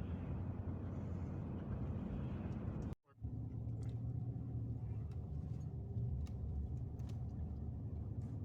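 Car interior noise while driving: a steady low engine and road rumble, cut off briefly about three seconds in, then carrying on.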